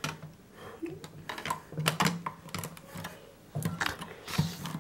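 Plastic LEGO pieces being handled and pressed into place: an irregular run of small, sharp clicks and clatters.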